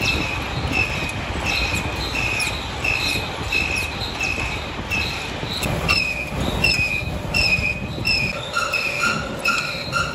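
A workshop machine running with a rhythmic high squeal, about two squeals a second, over a steady mechanical rumble. Near the end a second, lower-pitched squeal joins in on the same beat.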